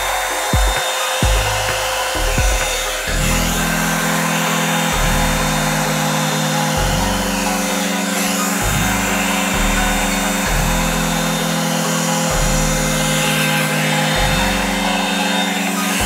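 Revlon One-Step hair dryer brush running steadily on its cool setting: a constant rush of blown air with a faint motor whine. Background music underneath changes chord about every two seconds.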